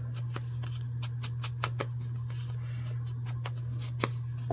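Ink blending tool dabbed and rubbed along the edges of a small paper envelope: a quick, irregular run of short scratchy strokes against the paper, over a steady low hum.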